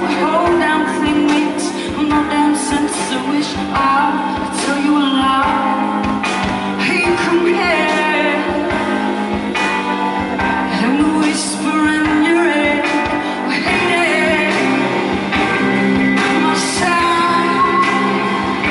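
Live band performance: a woman singing lead into a handheld microphone over the band's accompaniment, with drums.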